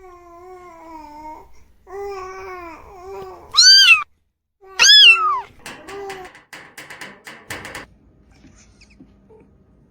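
Kittens mewing: a string of short wavering mews, then two loud, high, arching cries about four and five seconds in, followed by a series of sharp clicks.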